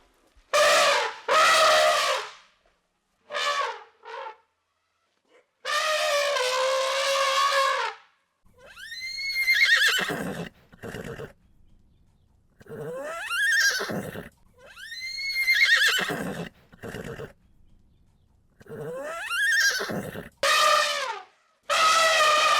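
Horse whinnying repeatedly: loud calls with gaps between, several sweeping sharply up in pitch and falling away, others held fairly steady for a second or two.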